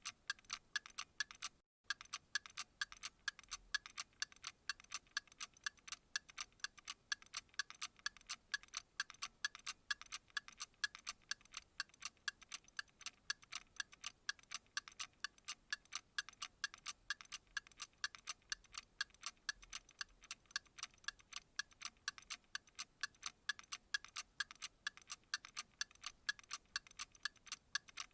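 Clock ticking in a fast, perfectly even rhythm of crisp, bright ticks, with a brief silent dropout about two seconds in.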